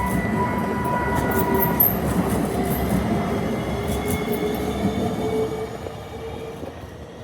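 A train passing through a level crossing, loud for the first five seconds and then fading as it moves off. A steady high ringing tone stops about two seconds in, while a lower whine rises slightly in pitch under the running noise.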